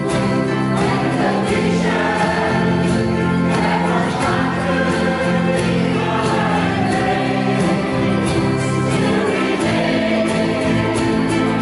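Several voices singing together in a slow song with sustained notes, over an instrumental accompaniment with a regular beat.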